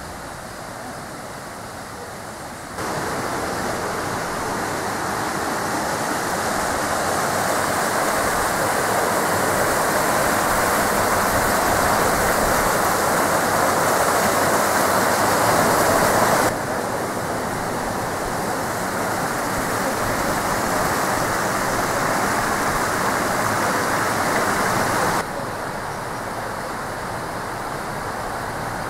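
River water rushing over rocks and rapids, a steady noise that grows louder about three seconds in and drops sharply twice, about halfway through and near the end.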